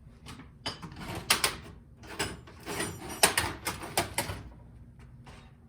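Metal tools and engine parts clinking and knocking as they are handled, a quick irregular series of sharp clicks and clanks that thins out after about four seconds.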